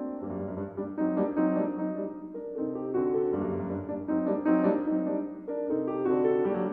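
Background piano music: a flowing melody over changing bass notes.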